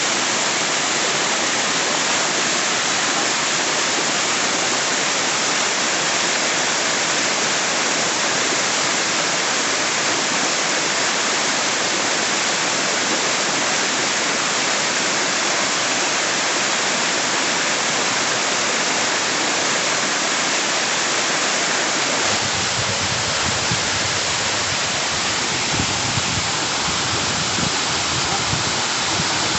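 Loud, steady rush of a waterfall crashing down. About three quarters of the way in, a low rumble joins it.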